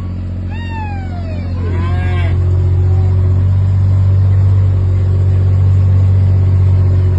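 Vehicle engine running steadily, growing louder after about two seconds. Early on, a farm animal gives a call that glides down in pitch several times.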